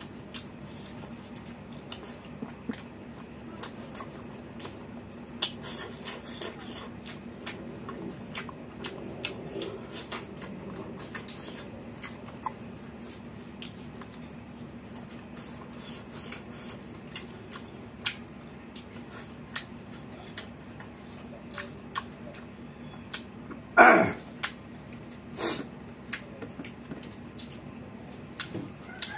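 A person eating close to the microphone: chewing and lip-smacking with many small clicks, over a low steady hum. About 24 seconds in comes a loud short sound, then a weaker one a second and a half later.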